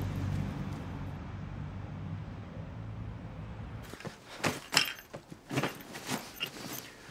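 A low, steady hum that fades out. From about four seconds in, clothes and a fabric holdall bag are handled as they are packed: a quick run of sharp rustles and handling knocks.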